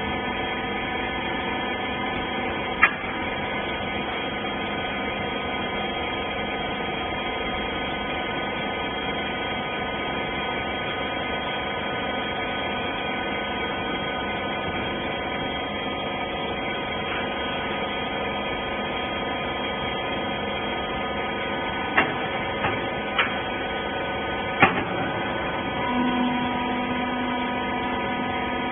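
Industrial rag baler machine running with a steady hum, with a few sharp knocks about 3 s in and again over several seconds near the end, and a higher tone joining shortly before the end.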